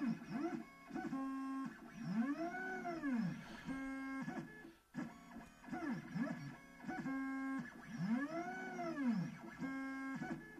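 Shapercube 3D printer's stepper motors driving the XY carriage on IGUS plastic linear bearings during test moves. Each move gives a whine that rises in pitch and falls again as it speeds up and slows down, with short steady tones between moves and a brief pause about five seconds in.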